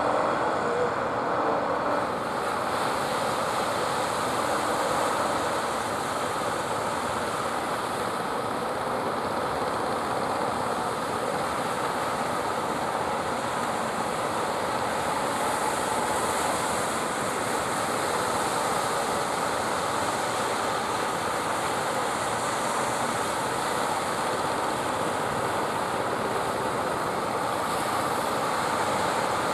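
Steady rushing of surf mixed with the running engines of small outrigger fishing boats coming in through the waves, with no distinct events.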